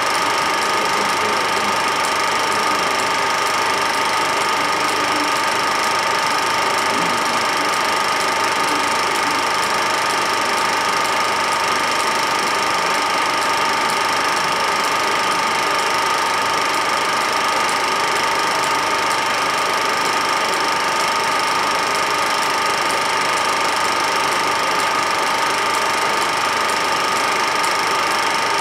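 Steady mechanical whirring and clatter of a running film projector, with two constant whining tones, unchanged across the picture's cuts.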